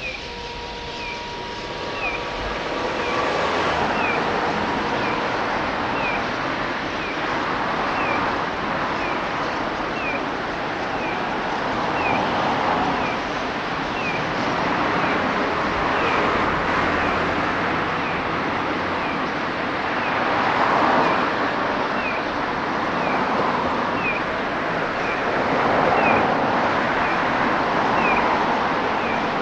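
A large flock of white-cheeked starlings chattering together in a dense, loud wash of calls that swells and fades every few seconds. Over it, a short falling chirp repeats about once a second.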